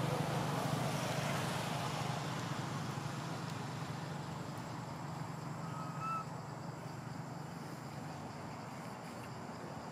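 A steady, low engine hum that slowly fades, with one short high chirp about six seconds in.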